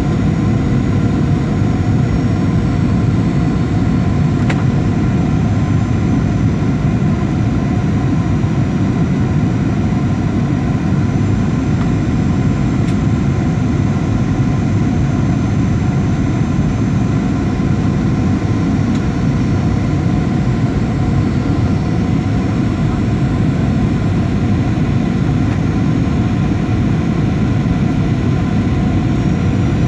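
Steady airliner cabin noise on the approach: a dense, unchanging drone of engines and airflow, with a few faint steady tones over it.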